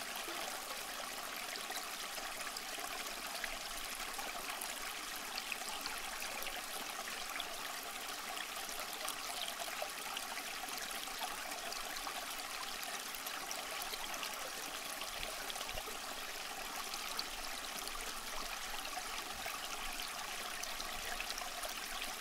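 Water trickling and running steadily, a constant hiss flecked with fine crackles.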